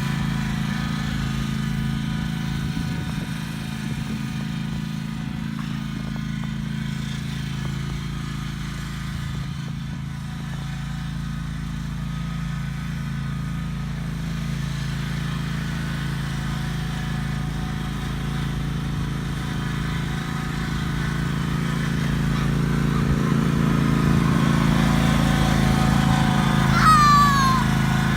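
Riding lawn mower engine running steadily, growing louder over the last several seconds. Near the end there is a short, high cry that falls in pitch.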